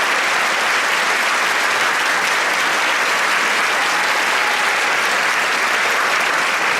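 Concert audience applauding steadily after a band performance.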